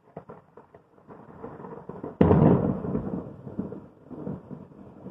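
Close thunder: a crackling build-up, then a sudden loud crack about two seconds in, followed by rumbling that slowly dies away.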